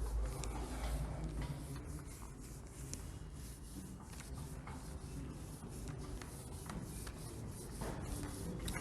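Handwriting: a writing tool scratching across a surface in many short strokes, over a steady low hum.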